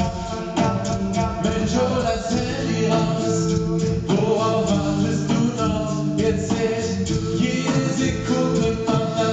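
Male a cappella quintet singing a song in German live through a PA in close harmony, with a steady beat kept by vocal percussion.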